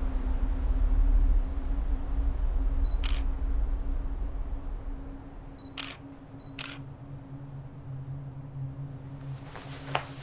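DSLR camera shutter firing three times, about three seconds in and then twice close together near six seconds, over a steady low hum and a deep rumble that fades away. A rush of hiss rises near the end.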